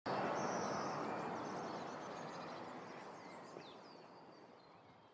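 Logo-intro sound effect: a broad hiss that starts suddenly and fades away over about five seconds, with a few faint high chirps above it.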